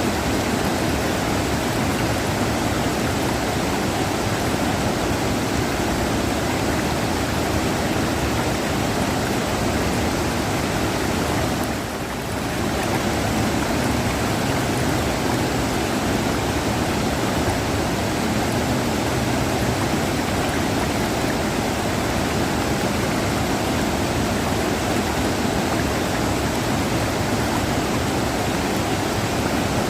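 River water rushing: a steady, even rush of flowing water, with a brief dip in level about twelve seconds in.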